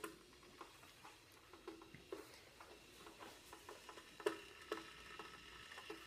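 Faint, irregular metallic ticks and pings, about ten in a few seconds, from a La Pavoni lever espresso machine's boiler as it heats up from cold just after being switched on.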